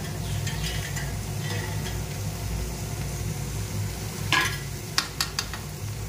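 A metal spoon stirring and scraping chicken curry in a metal pan on a gas stove, over a steady low hum. About four seconds in there is a loud scrape, followed by a few quick sharp taps of the spoon against the pan.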